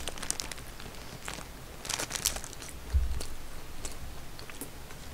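Close-miked eating of a burger: soft chewing and mouth clicks with light crackles of the paper wrapper, and a dull thump about three seconds in.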